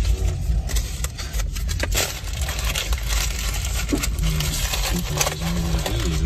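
Low rumble inside a car's cabin in slow traffic, with a string of small clicks and jingling rattles over it, thickest in the first few seconds.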